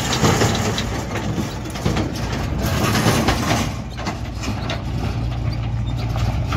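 Red Mahindra farm tractor's diesel engine running steadily as it pulls away a trolley loaded with mud over rough ground, with intermittent clatter throughout.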